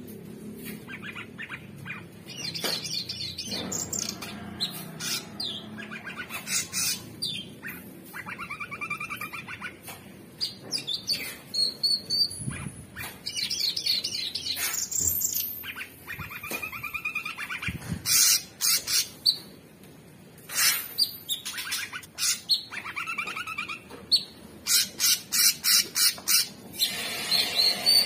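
A male orange-bellied leafbird singing a fast, varied song of chirps, quick trills and harsh notes. It grows denser and louder in the second half.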